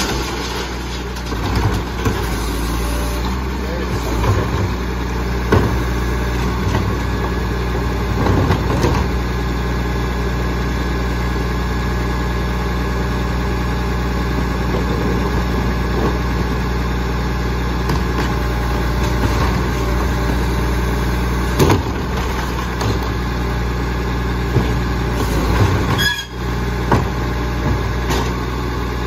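Labrie Expert side-loader garbage truck idling steadily on its diesel engine while its cart tippers flip wheeled plastic trash carts into the hopper. Carts clatter and thump against the tipper and the body, with two sharp knocks in the later part.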